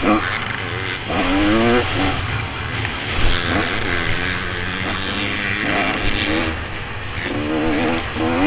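Motocross bike engine heard from the rider's helmet camera, revving up hard as the bike accelerates about a second in, again around three seconds in, and again near the end, backing off in between, over a steady rush of wind and track noise.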